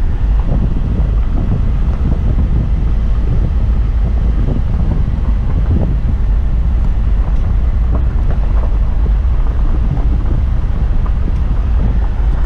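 Steady low rumble of a car driving on a road, heard inside the cabin: tyre, engine and wind noise.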